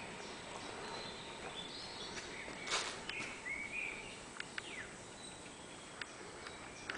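Birds chirping in the trees over a steady outdoor background hiss, with a few light footstep clicks. There is a short scuff about three seconds in, the loudest sound.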